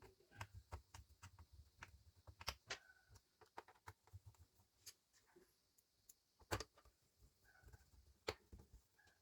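Faint, irregular small clicks and taps of screws being picked up, set in place and driven into a laptop's plastic bottom cover with a small Phillips screwdriver, with a few sharper clicks now and then.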